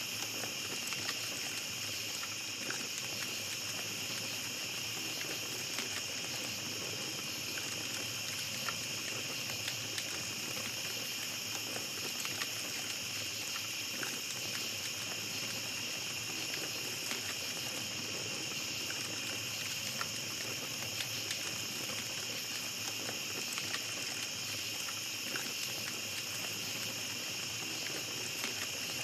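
Night forest ambience: a steady high chorus of insects, with a small campfire crackling in scattered small pops and ticks.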